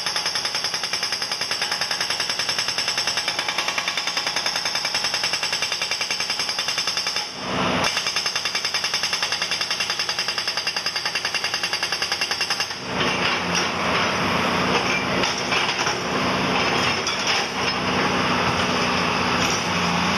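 Jackhammer-type rock drill hammering into granite in a fast, steady rapid-fire pounding, with a brief break about seven seconds in. From about thirteen seconds the hammering turns less even, and a low engine drone runs under it.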